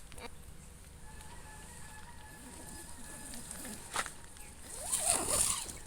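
A chicken calls once, briefly, about five seconds in, over a faint background, with a single sharp click just before it.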